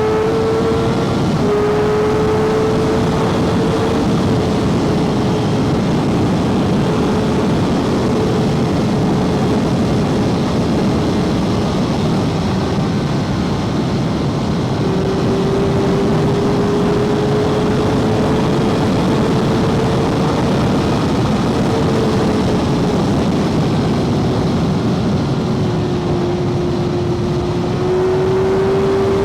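Kawasaki Ninja ZX-6R 636 inline-four engine running under way at a steady cruise, under a constant rush of wind. Its note creeps up slowly, eases off, and climbs again near the end.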